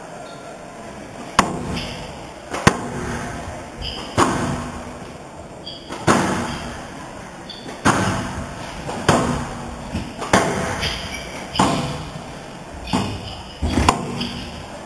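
Squash rally: the ball cracking off rackets and the court walls every second or so, starting about a second and a half in, each hit echoing through the hall.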